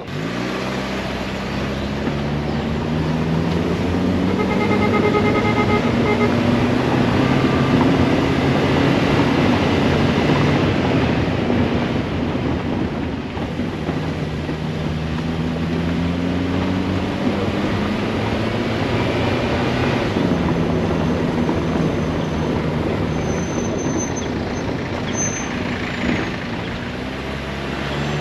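A low-powered small car's engine pulling uphill, its pitch rising through each gear and dropping back at the shifts, heard from inside the cabin. The tyres add a steady rumble over the cobblestones.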